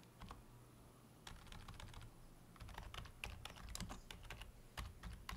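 Faint computer keyboard typing: irregular runs of light key clicks, several a second from about a second in.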